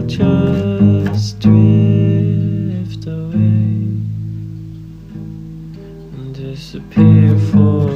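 Acoustic guitar music: plucked notes and chords left to ring and fade, with fresh strikes about a second in, near one and a half seconds, and again near the end.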